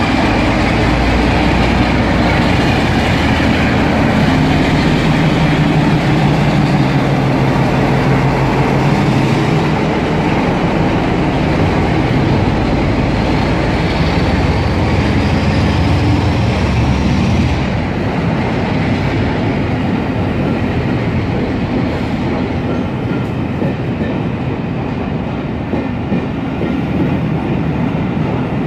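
Class 47 diesel locomotive's Sulzer twelve-cylinder engine running under power as it pulls a train of coaches away. The engine note fades about eighteen seconds in, leaving the coaches' wheels rolling and clacking over the rails.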